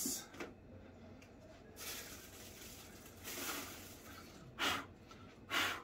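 Soft rustling and shuffling of packing material as a statue base is handled and unwrapped, with two short breathy puffs about a second apart near the end.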